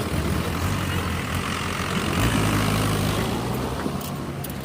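Diesel engine of heavy machinery running, revving up about two seconds in and then easing back.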